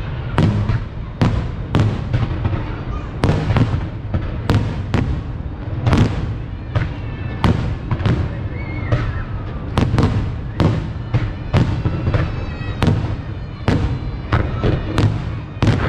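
Fireworks display: aerial shells bursting in quick succession, sharp bangs about twice a second over a continuous low rumble.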